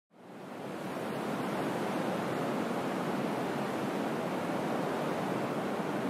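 Steady wash of ocean surf on a sandy beach, fading in over about the first second: the app's beach-ambience alarm sound playing back.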